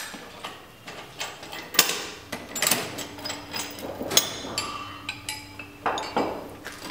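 Metal clanks and knocks from the steel clamps and frame of a manual hand-push HDPE butt fusion machine being handled as a pipe is set and clamped, the loudest knock about two seconds in. A faint steady hum runs under the knocks from a little after two seconds.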